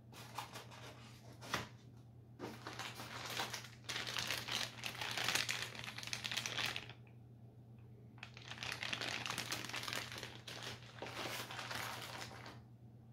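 Clear plastic bag crinkling as a bundle of model railway track sections inside it is handled, in two stretches of a few seconds each, with a light click shortly before the first.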